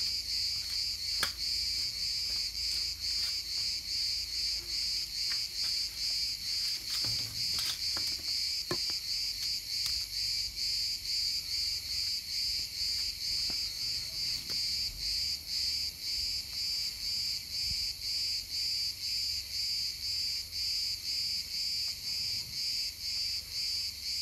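Insects chirping in a steady, even rhythm of about two pulses a second, with a few faint clicks.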